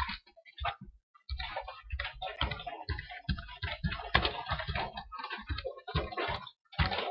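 Typing on a computer keyboard: a fast, uneven run of key clicks, with a short pause about a second in and another near the end.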